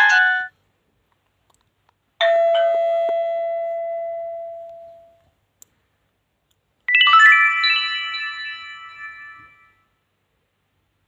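Nokia 2680 slide mobile phone playing two short chime alert tones through its speaker. The first comes about two seconds in and the second about seven seconds in. Each is a bell-like ding of a few notes that fades away over about three seconds. The tail of an earlier tone cuts off at the very start.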